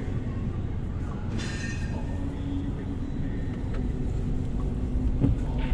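Low, steady rumble of a Mercedes-Benz car's engine and tyres heard from inside the cabin as it rolls slowly along a lane. There is a brief higher-pitched sound about a second and a half in, and a few sharp clicks near the end.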